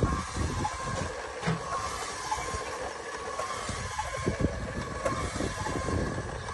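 Motorised rotisserie turning spits over a charcoal grill: a steady motor whine over a low, uneven rumble and hiss.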